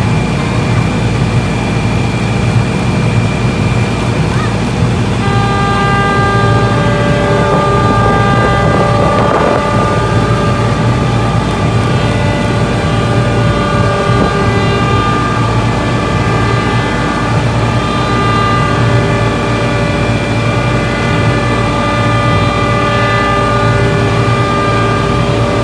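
Portable fire pump engines running steadily at high throttle while their hoses discharge water, a continuous low hum. About five seconds in, a steady high-pitched tone with overtones joins and holds, broken only briefly now and then.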